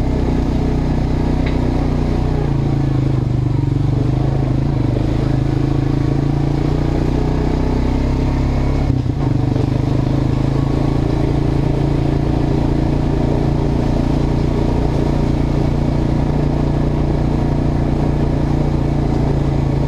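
ATV engine running at a steady trail-riding pace, heard from a camera on the rider's helmet, with a brief dip in the note about nine seconds in.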